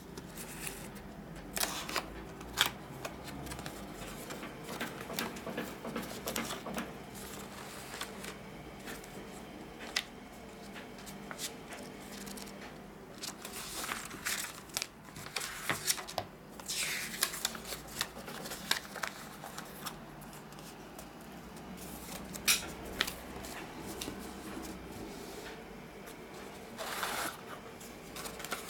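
Cardboard box and paper being handled: flaps and tabs pulled open, paper manuals and leaflets rustled and shuffled, with scattered taps and clicks.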